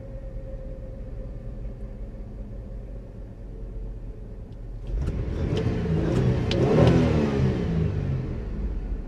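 Car engine heard from inside the cabin, idling steadily, then revved once about five seconds in, rising to a peak and falling back to idle.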